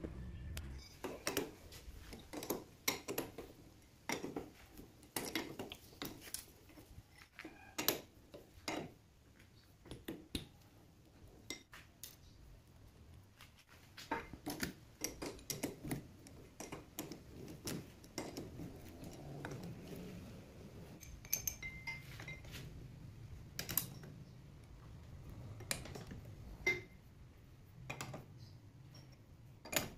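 Irregular clinks and knocks of steel parts and tools being handled on a metal lathe: a chuck key, a workpiece and the tool post.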